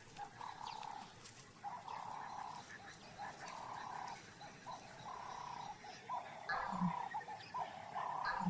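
Natural wildlife ambience: many short animal calls repeating over and over, each lasting under a second, with a brief low thump about seven seconds in.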